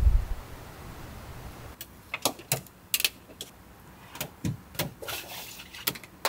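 Mesh insect screens being fitted over a camper van's windows: a dull thump at the very start, then a scatter of light clicks and taps with a brief rustle of the screen fabric against the van body.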